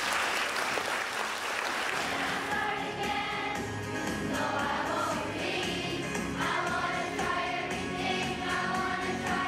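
Applause that dies away over the first two or three seconds, then a large group of children singing together.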